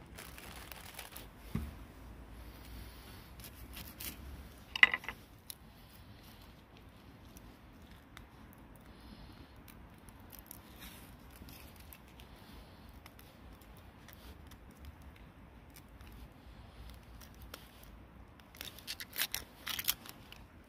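Papery outer skin being torn off an onion by hand, dry crackling and tearing strongest near the end, with one sharp click about five seconds in.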